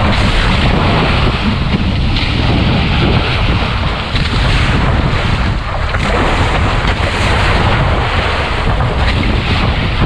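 Water rushing and splashing along a Farrier 39 trimaran's hull as it sails, with wind blowing on the microphone. The noise is loud and steady throughout, with no distinct knocks or calls.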